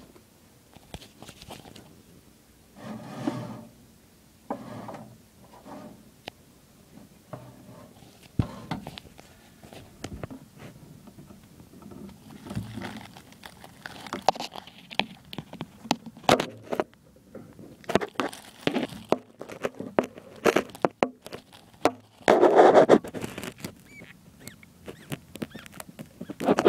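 Irregular scrapes, clicks and knocks from a phone being handled against a glass terrarium. A few longer, louder noisy spells come about 3 s in and, loudest, about 22 s in.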